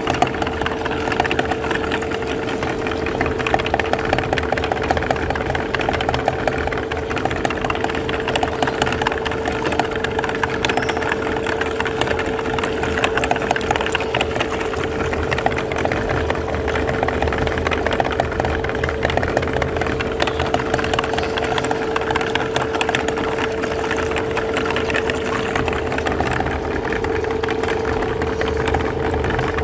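Belt-driven meat grinder running steadily: a constant hum with a steady whine, with fine crackling and clicking as jelly pieces are forced through the auger and cutting plate.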